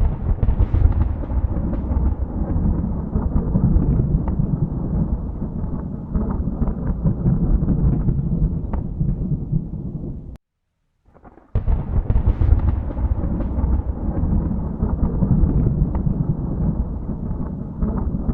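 Thunder: two long rolling rumbles, each starting with a sharp crack. The first cuts off abruptly about ten seconds in, and after a second of silence a second clap breaks and rolls on.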